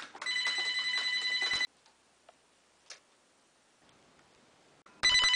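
Telephone ringing with a trilling electronic ring: one ring about a second and a half long near the start, and a second ring starting near the end. A couple of faint clicks fall between the rings.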